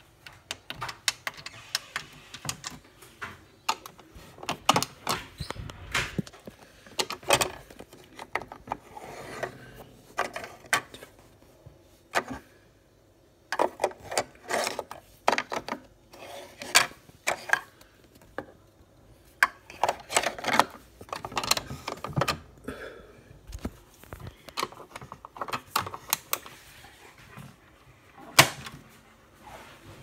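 Irregular plastic clicking and clattering from a toy Miele W1 washing machine being handled: buttons pressed, the programme dial turned, the detergent drawer and the door worked.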